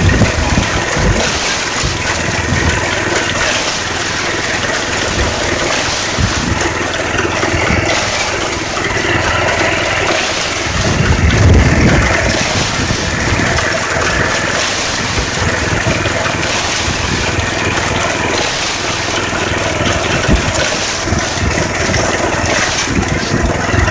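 Walk-behind rice binder's small engine running steadily under load while it cuts rice, with a dense mechanical clatter. Low irregular rumbles of wind or handling noise hit the phone microphone now and then.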